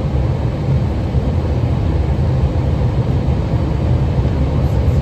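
Steady low drone of aircraft engines and airflow heard from inside the cockpit on approach to landing.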